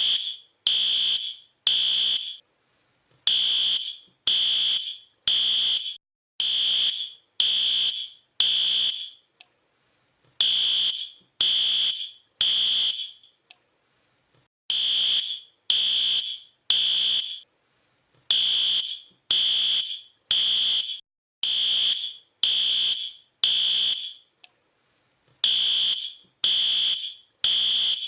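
Fire alarm beeping, a shrill steady tone repeated about once a second in runs broken by short pauses.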